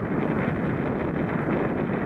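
Wind buffeting the microphone: a steady, rough rushing noise.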